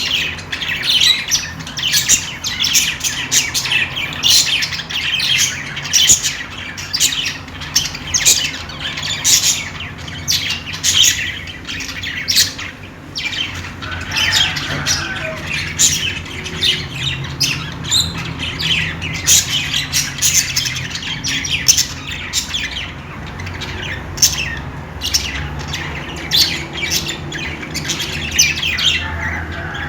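Budgerigars chirping and chattering without pause: a dense run of short, high chirps and squawks.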